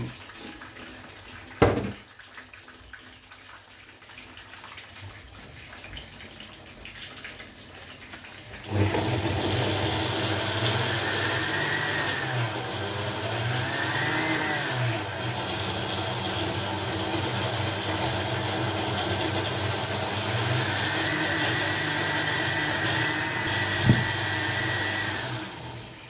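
A countertop blender puréeing onions and tomatoes. It starts about nine seconds in and runs for about seventeen seconds, a steady motor noise with a whine that rises and falls a few times, then stops just before the end. There is a single sharp click about two seconds in and another short knock shortly before it stops.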